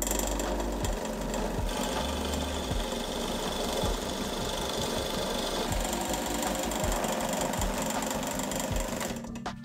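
Drill press running with a cutter bit routing a groove along a softwood board: steady motor hum under a rough cutting noise as the bit chews through the wood. The cutting noise changes about two seconds in and again about six seconds in, and stops just before the end.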